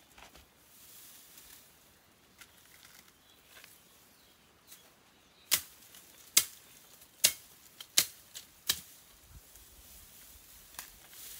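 Five sharp knocks about halfway in, a little under a second apart, followed by a few fainter taps, against a quiet background.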